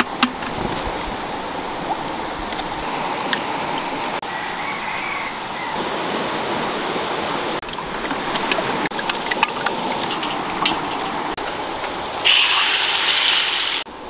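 Steady rush of running water, with scattered light taps and knocks from cooking work. Near the end comes a louder burst of water noise lasting about a second and a half.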